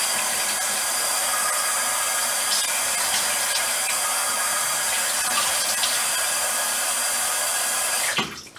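Bathroom sink tap running in a steady stream, shut off sharply near the end.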